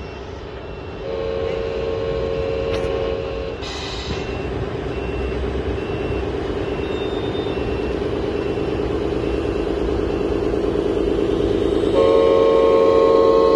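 RC scale trucks' electronic sound modules playing a diesel engine running at a steady pulse, with an air horn chord held for about two and a half seconds starting about a second in, and sounded again near the end. A short hiss follows the first horn blast.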